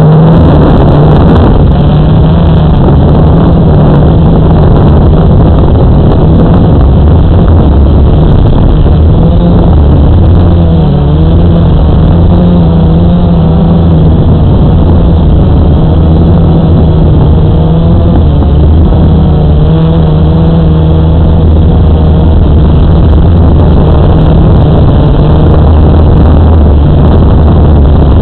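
Electric motors and propellers of a radio-controlled aircraft, heard through its onboard camera's microphone: a loud, continuous buzzing hum whose pitch wavers up and down as the throttle changes.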